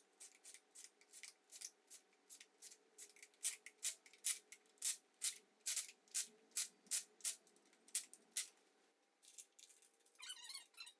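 Sharp clicks, about two to three a second, from hand tools working the bolts of a 4.8L LS's long-runner truck intake manifold. Near the end the clicking stops and a chirpy, warbling squeak takes over.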